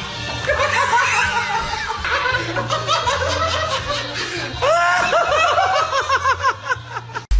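Laughter over background music, with a run of quick repeated 'ha' sounds in the second half.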